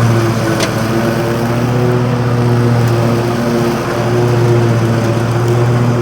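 Lawn mower engine running steadily under load while cutting grass, with a slight dip in level about four seconds in.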